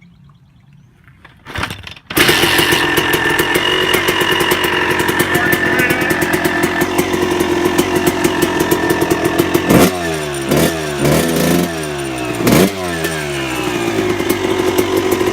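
2000 Suzuki RM250 two-stroke motocross engine with an FMF aftermarket exhaust being kicked and catching about two seconds in, then idling with a rapid, even beat. It is blipped up and down several times near the middle and then settles back to idle.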